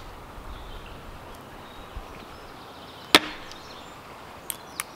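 Hatchet splitting a small log on a chopping block: one loud, sharp chop about three seconds in, followed by a couple of lighter wooden knocks near the end.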